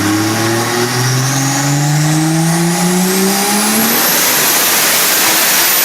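Turbocharged 3.4-litre stroker 2JZ inline-six in a G35 sedan accelerating hard, its pitch climbing steadily for about four seconds. A high whistle climbs with it and then holds at the top.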